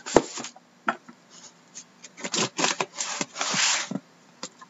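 Cardboard case knocked down onto a wooden desk, then a run of scraping and rubbing strokes on its taped top as the sealing tape is cut open.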